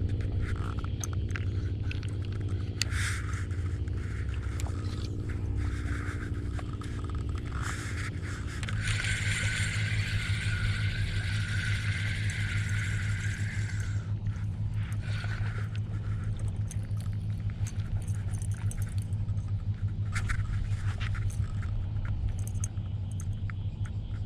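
An engine running steadily with a low hum, its note shifting about eight and a half seconds in. Scraping and rustling on top, heaviest from about nine to fourteen seconds in.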